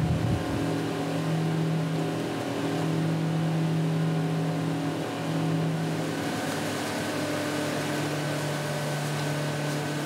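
The ferry boat's engine running at a steady cruising speed, heard from on board, its even drone shifting slightly about six seconds in.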